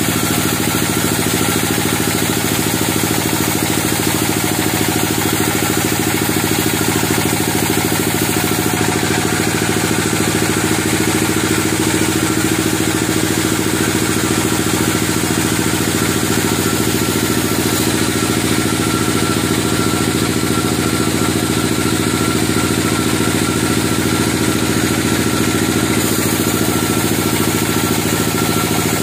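Homemade band sawmill running steadily, its band blade sawing lengthwise through a large gmelina (white teak) log.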